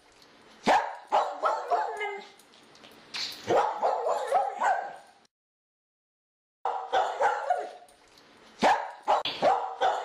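A dog barking in quick runs of short barks, cut by a second or so of complete silence about five seconds in.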